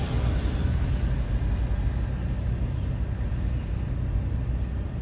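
Long CSX intermodal freight train rolling past: a steady, unbroken rumble of cars on the rails.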